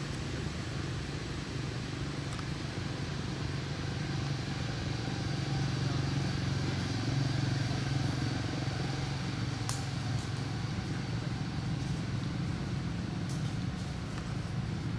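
Low, steady hum of a distant engine, swelling slightly midway, with two short clicks in the second half.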